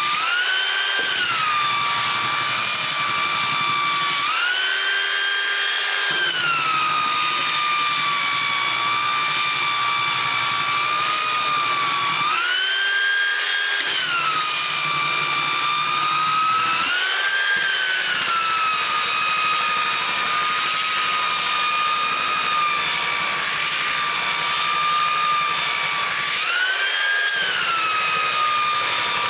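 Porter-Cable belt sander running, sanding proud plywood box-joint pins flush with the cabinet sides. A steady motor whine that rises briefly in pitch and falls back about five times.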